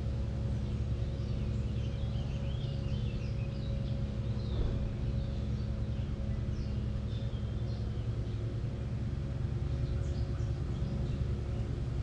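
Birds chirping and calling in short, scattered phrases over a steady low mechanical hum, with a brief knock about four and a half seconds in.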